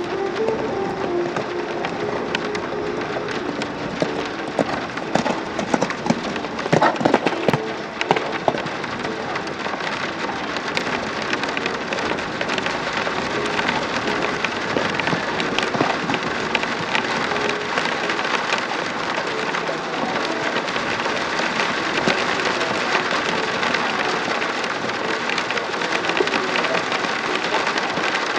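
Steady heavy rain pattering close to the microphone, with a few louder knocks between about four and eight seconds in.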